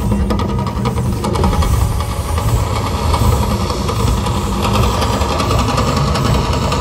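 Fire jets of the Mirage volcano erupting: a loud, steady rushing roar with a deep rumble underneath.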